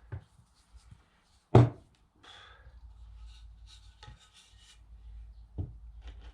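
Wooden pieces knocking and rubbing together as they are handled and fitted: one loud sharp knock about a second and a half in, a few softer knocks, and scraping between them.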